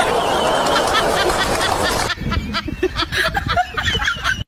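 People laughing: a dense burst of laughter for about two seconds, then scattered snickers and chuckles.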